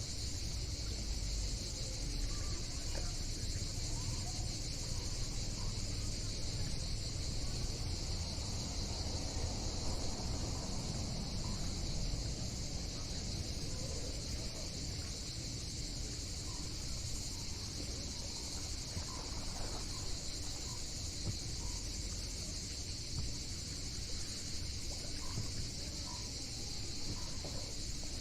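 A steady chorus of summer insects, one unbroken high-pitched drone, over a low steady rumble.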